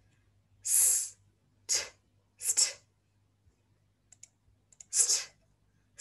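A woman's voice sounding out the voiceless consonant sounds of a phonics blend: a hissed 's' and short, breathy 't' sounds, each said on its own with pauses between. The first hiss is the longest.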